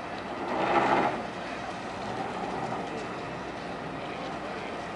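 Boat engines idling in the lock chamber, a steady low hum, with a brief louder rush of noise about a second in.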